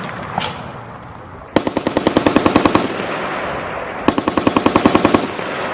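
M2 .50-calibre heavy machine gun firing two bursts, the first about a second and a half long and the second about a second, at roughly nine rounds a second, the reports ringing on between bursts.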